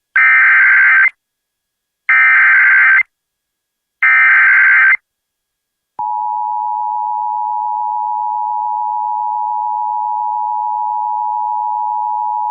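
Emergency Alert System tones: three roughly one-second bursts of SAME digital header data, about two seconds apart. After a short gap, the steady EAS attention-signal tone starts about six seconds in and holds.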